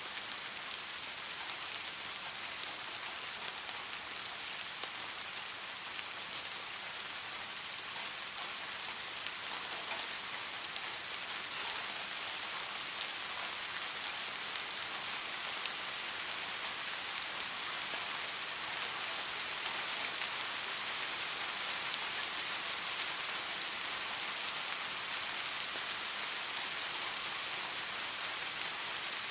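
Steady rainfall, a dense hiss of drops striking a surface with fine individual drop ticks, growing slightly louder in the second half.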